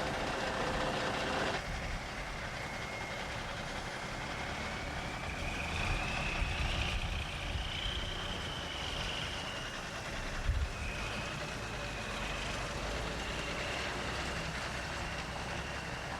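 Semi truck hauling a modular-home section, its diesel engine running steadily with road rumble, a thin wavering whine over it and a single thump about ten seconds in.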